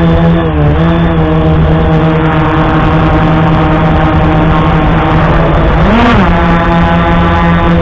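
Brushless motors and propellers of a Bayangtoys X16 quadcopter heard through its onboard camera: a loud, steady whine that briefly rises and falls in pitch about six seconds in.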